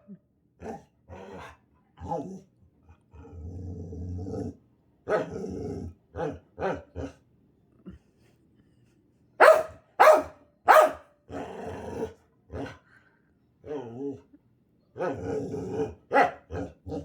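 Pit bull 'talking' back: a long string of short grumbling growls and vocal noises, with three loud sharp barks close together about halfway through.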